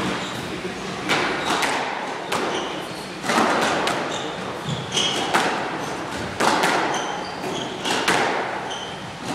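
A squash rally: the ball cracks off racquets and the court walls with a sharp hit every half second to a second, each ringing on in the court's echo. Short high squeaks of court shoes on the wooden floor come between the hits.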